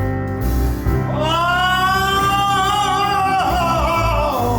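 Live gospel music: from about a second in, a singing voice holds one long, wavering high note over the band's steady bass, sliding down in pitch near the end.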